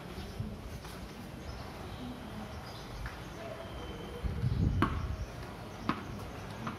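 Flip-flop footsteps slapping on a tiled floor, a few sharp slaps about two-thirds of the way in, over a short low rumble that is the loudest sound.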